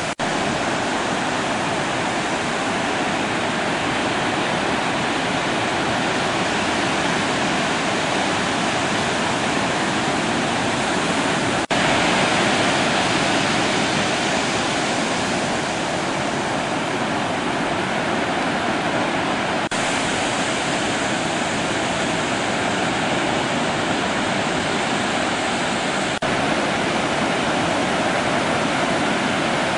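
Steady rushing of ocean surf, with sudden small jumps in level about 12, 20 and 26 seconds in where recordings are joined.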